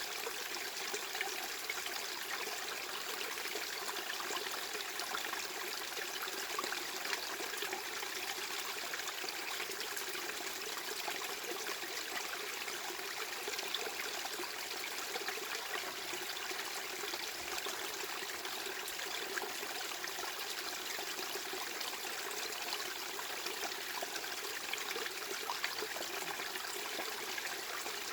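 Steady, unchanging rush of running water, like a stream or trickle, with a fine crackle and very little deep bass.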